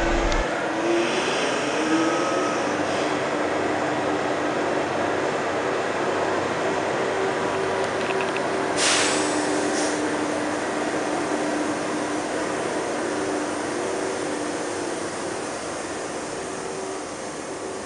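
TGV Réseau power car moving off slowly along the platform. Its traction equipment hums, with a tone that rises a little in the first couple of seconds as it gathers speed. A short hiss comes about nine seconds in, and the sound fades slowly as the train draws away.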